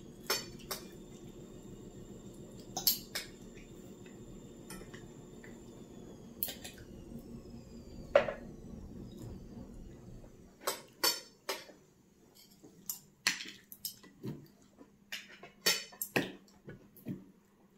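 Cutlery and dishes clinking at a dinner table: scattered light clicks and taps of forks on plates, sparse at first and more frequent in the second half.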